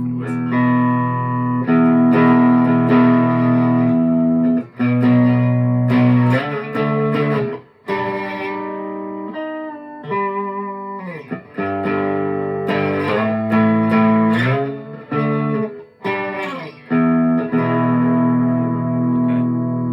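Electric guitar played through a DemonFX Steel String Supreme preamp pedal: chords strummed and left to ring, changing every second or two, with a couple of sliding pitch glides in the middle.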